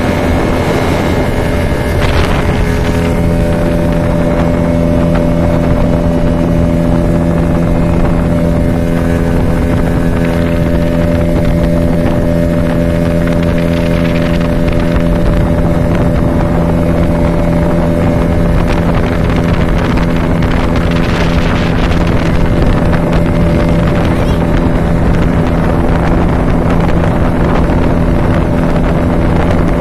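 Outboard motor driving a small motorboat at a steady speed, its drone holding one even pitch, with wind noise on the microphone.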